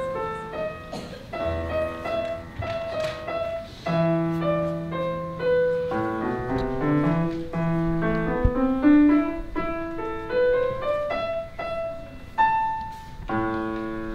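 Solo piano playing a short piece: a melody of single notes over low held chords, closing on a sustained chord near the end.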